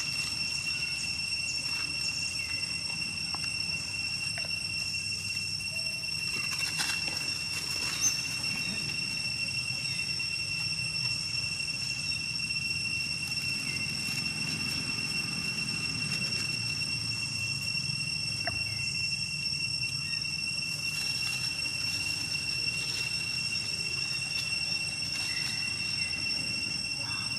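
Steady, high-pitched drone of insects in the forest, unchanging throughout, over a low rumble, with scattered faint rustles and one sharp click about eight seconds in.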